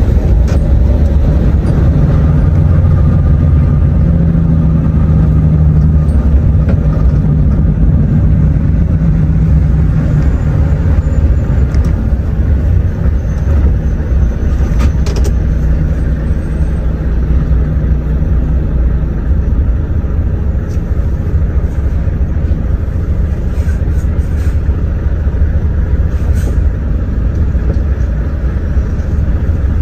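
Inside the cab of a Volvo truck under way: a steady low diesel engine drone with road noise. The engine note fades after about twelve seconds as the truck slows in traffic.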